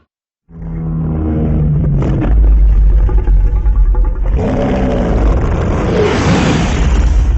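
Revamped Godzilla monster sound effect, very deep and heavy. It starts about half a second in with pitched, wavering layers over a strong rumble, and turns rougher and hissier about four seconds in.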